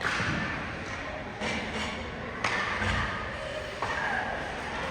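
Sounds of an ice hockey game echoing around the arena: four sudden knocks and thuds, at the start, about 1.5 s, about 2.5 s and near 4 s, each ringing out in the rink, with faint voices under them.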